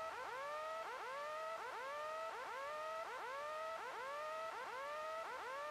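Faint electronic tone pattern: a rising whoop repeating about twice a second over a few steady held tones.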